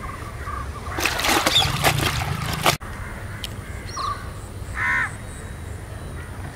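About a second in, a couple of seconds of rustling noise, the loudest sound here, stops abruptly. A bird calls once, briefly, about five seconds in, over a low outdoor hiss.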